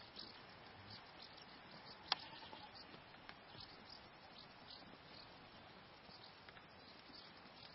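Near silence: a faint, steady outdoor hiss, with a single sharp click about two seconds in.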